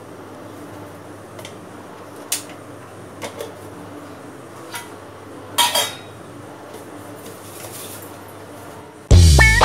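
Scattered light clinks of steel kitchen utensils, with one louder clatter that rings briefly about halfway through, over a steady low hum. Loud guitar-and-bass music cuts in near the end.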